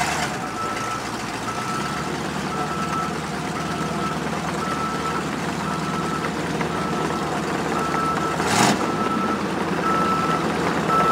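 A vehicle's reversing alarm beeping steadily about once a second at a single pitch, over a vehicle engine running. There is one brief loud burst about eight and a half seconds in.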